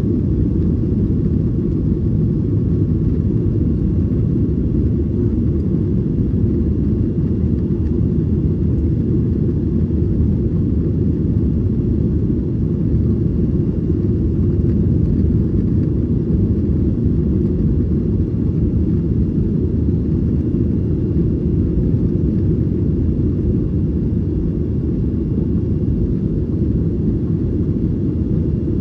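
Steady low cabin drone of a Boeing 737-900ER in flight: its CFM56 turbofans and the airflow over the fuselage, heard from inside the passenger cabin. A faint thin tone fades out about six seconds in.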